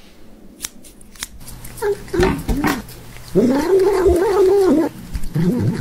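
A cat making growling meows while licking a treat from a squeeze tube, the impatient 'hangry' noise some cats make while eating. The loudest call, a little over three seconds in, is drawn out for more than a second, with shorter calls before and after it.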